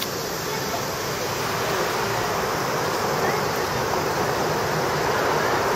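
Steady rushing noise of city traffic, growing slightly louder over the few seconds.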